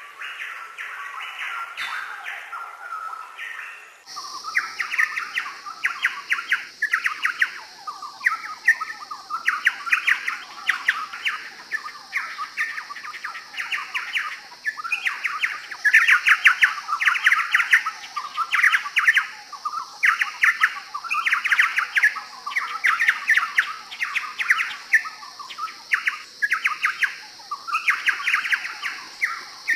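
Chowchillas (Spalding's logrunners) singing: short phrases of rapid notes, repeated one after another almost without a break. About four seconds in, a steady high-pitched background drone joins.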